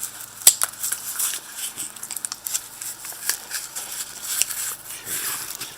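A knife sheath being handled and turned over: irregular small clicks and rustles, with one sharp click about half a second in.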